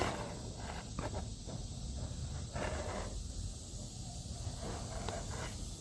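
Soft rustling and swishing of paper catalog pages being handled and turned, with a few faint clicks, over a low steady hum.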